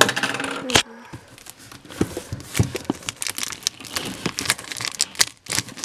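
Plastic wrap on a power supply box crinkling and tearing as it is pulled open by hand, with many small crackles. There is a sharp knock right at the start and another just under a second in.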